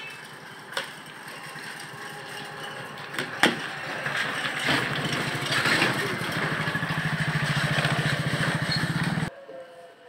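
An engine running with a fast, even pulse, growing louder over several seconds and then cutting off suddenly, with a sharp knock a few seconds in.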